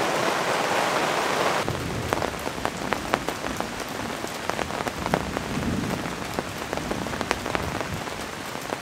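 Heavy rain in an intense downpour, drumming on a pop-up canopy's fabric roof as a dense steady hiss. About one and a half seconds in it turns to a lighter hiss of rain falling through trees, with many separate drops ticking close by.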